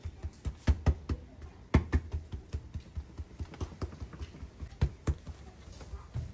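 Hands patting and pressing rounds of bread dough flat on a floured cloth over a table: an irregular run of soft slaps, taps and thumps.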